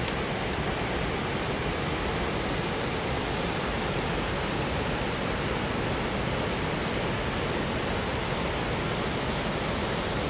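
Steady rushing of a fast-flowing mountain river, an even noise with no breaks.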